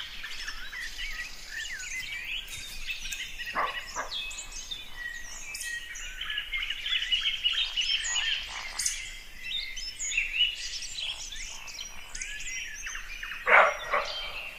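Dense chorus of birds chirping, many short calls overlapping. About a second before the end a brief louder call stands out.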